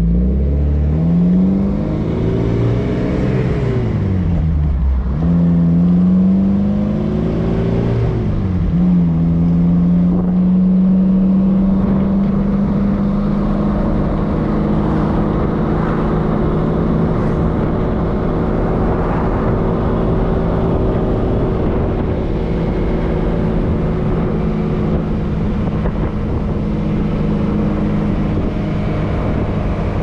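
Alfa Romeo Spider's engine heard from inside the car, over a steady rush of road noise. The revs climb and fall twice, then hold a steady pitch at a cruise for the rest of the time.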